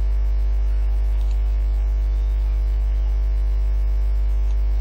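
Steady electrical mains hum: a low drone with a row of fainter higher overtones, unchanging throughout.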